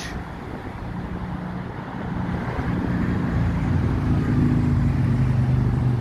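Busy road traffic at a major junction, with one vehicle's engine hum growing louder from about two seconds in as it draws close.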